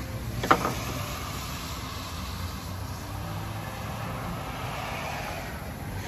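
A steady low hum under a noisy background, with one sharp knock about half a second in.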